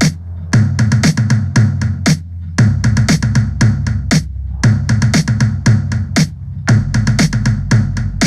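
Electronic dance track with a drum-machine beat and a held bass line, played loud through a 15-inch powered PA speaker. The bass note steps lower about two and a half seconds in and again near the end.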